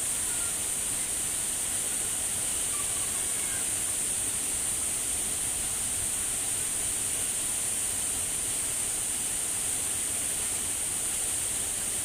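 Waterfall plunging into a rock pool: a steady, unbroken rush of falling water with a strong high hiss.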